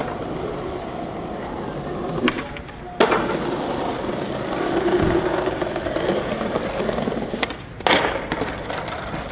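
Skateboard wheels rolling over stone plaza paving, set off by a sharp clack of the board on the ground about three seconds in. Near the end a second loud clack comes as the board shoots out from under the skater on a missed trick.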